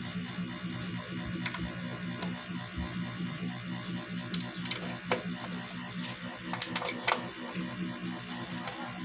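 Steady electrical hum and hiss from a switched-on mixer and speaker system, with sharp clicks and pops from about four seconds in, the loudest a cluster near seven seconds, as RCA cable plugs are pushed into the mixer's input jacks.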